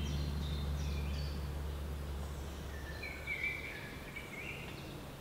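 Woodland ambience: faint songbirds calling and singing, with a warbling phrase about three seconds in, over a low steady hum that fades toward the end.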